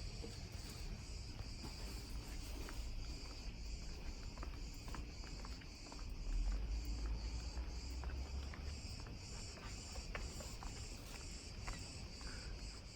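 Insects chirring in a steady, high-pitched pulsing drone, with a low rumble underneath that swells for a few seconds midway.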